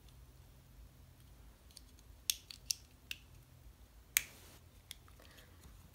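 Small plastic parts of an Academy Phoenix model kit clicking as they are fitted and hooked on by hand: a few sharp clicks and fainter ticks, the loudest about four seconds in.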